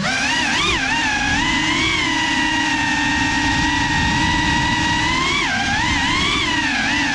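GEPRC Cinelog 35 cinewhoop drone's motors and ducted propellers whining in flight. The pitch holds steady for long stretches and swoops up and down with throttle changes, about a second in and again around five and a half to six and a half seconds in.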